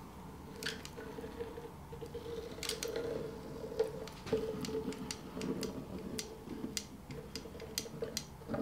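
Hand-held caulking gun pushing silicone sealant out of its cartridge, giving irregular light clicks over a faint steady hum.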